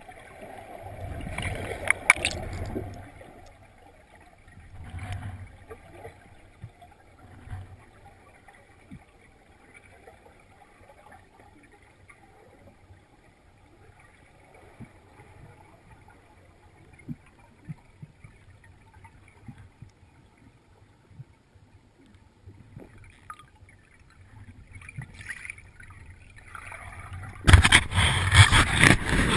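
Muffled underwater water noise with a few low sloshes early on and scattered faint clicks, then about two seconds before the end a loud rush of air bubbles streaming past the camera.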